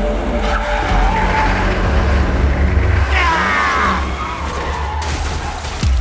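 Dubbed car sound effects: a steady low engine rumble with tyre skidding, including a screech that slides down in pitch about three seconds in, and a sudden hit near the end.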